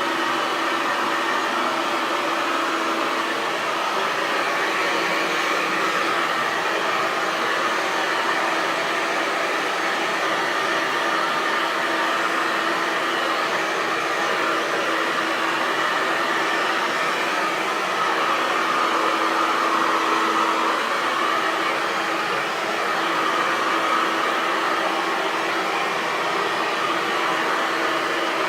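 Hair dryer running steadily: a continuous airy whoosh with a low motor hum underneath.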